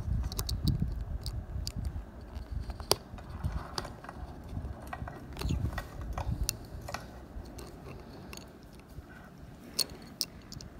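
Metal adjustable watch case opener wrench turning a watch's screw-on steel case back, with scattered small metallic clicks and scrapes over a low handling rumble.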